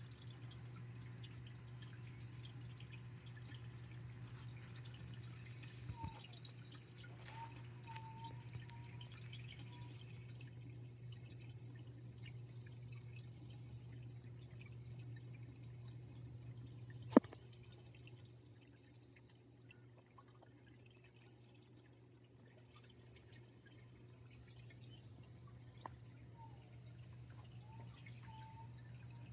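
Water steadily trickling and splashing into a small stone-built biotope pond, over a low steady hum. A sharp click about 17 seconds in, and a few faint short chirps.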